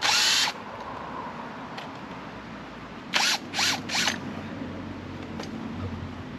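Power drill run in short bursts: one half-second run at the start, then three quick trigger pulls a little past the middle, the motor pitch sliding up and down within them.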